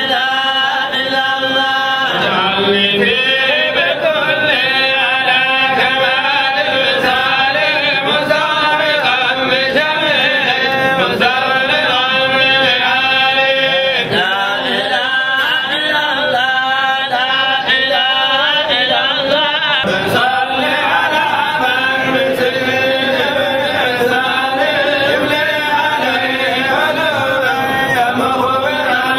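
Men's voices chanting an Islamic devotional chant, led by one man singing into a microphone, continuous without a pause.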